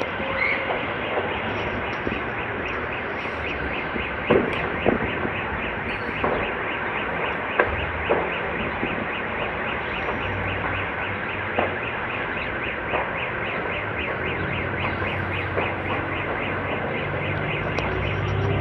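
Steady rushing noise of a large fuel fire burning, with scattered sharp cracks and a fast, even ticking in the background.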